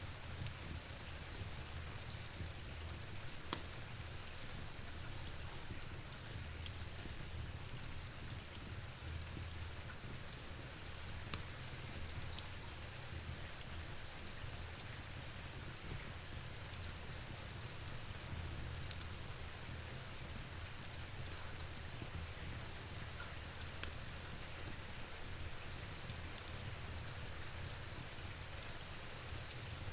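Steady rain falling, an even hiss with a low rumble beneath, broken by a few sharp ticks.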